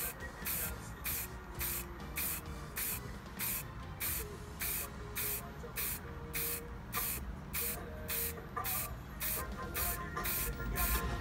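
Montana chrome aerosol spray paint can hissing in short, quick bursts, about two a second, as the nozzle is pressed again and again to mist the paint on.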